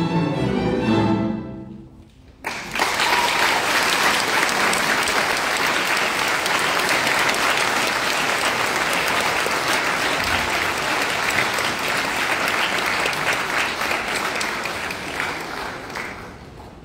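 A string orchestra plays its final chord, which ends about two seconds in. After a brief pause, the audience applauds, and the clapping tapers off near the end.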